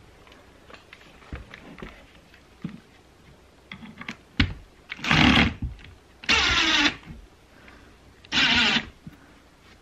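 Cordless driver sinking a 2-inch wood screw through a plywood shelf into its support leg, in three short runs of under a second each, its pitch wavering as the screw bites. A few light wooden knocks and clicks come before, as the pieces are set in place.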